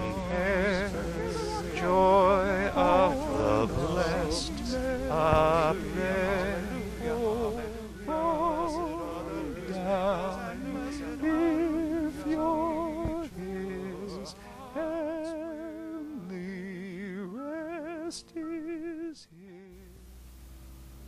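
Home-recorded keyboard music: a melody with heavy vibrato in phrases a second or two long over sustained chords. It stops abruptly near the end, and a much quieter, low passage begins.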